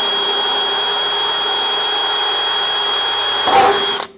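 Power drill boring a hole through sheet metal, running with a steady high whine, then stopping abruptly about four seconds in.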